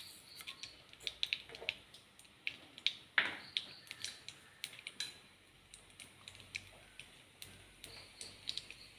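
Mustard seeds popping and spluttering in hot oil in a frying pan: irregular sharp pops, several a second, over a faint sizzle. The popping shows the oil is hot enough for the seeds, the start of the tempering.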